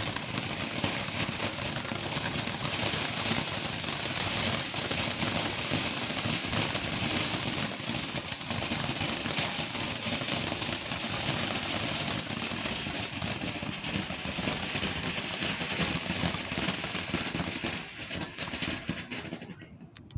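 "Fancy Town" consumer firework fountain burning: a steady hissing spray with fine crackling through it, fading out near the end.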